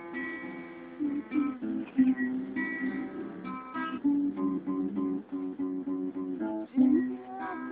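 Acoustic guitar being played, a run of plucked notes and chords.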